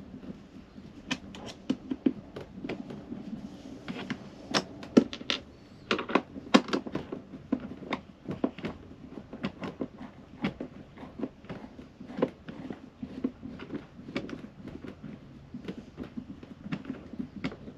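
Irregular sharp clicks and small knocks of a hand screwdriver and fingers working the screws and plastic fittings of a caravan window hinge, with a few louder clacks around the middle.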